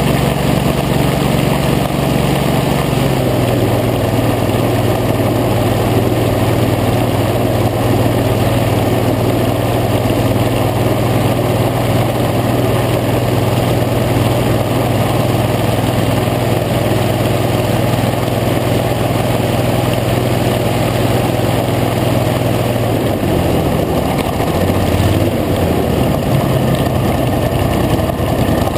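Hovercraft engine and fan running steadily at cruising speed, with air rushing past. The engine pitch eases down slightly about three seconds in, then drops and wavers up and down over the last few seconds.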